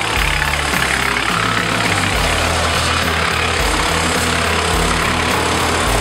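PTO-driven wood chipper chewing through a long branch, its steady grinding rush carried over the drone of the compact tractor's engine running under load. Background music with a steady beat plays over it.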